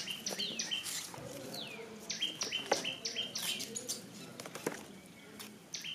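A bird calling in quick runs of short chirps mixed with falling whistled notes, about three notes a second: one run at the start and another from about two seconds in. Light clicks and rustles come from hands handling paper labels and twine-wrapped crackers.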